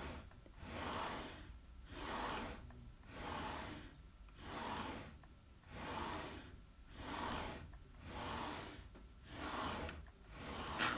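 Rhythmic heavy breathing, about one breath every second and a bit, each breath a soft rush of air that swells and fades.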